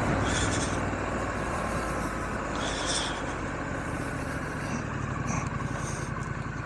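Triumph Scrambler 900's parallel-twin engine running steadily at low revs as the motorcycle rides off slowly, picked up by a microphone inside the rider's helmet, with some wind hiss.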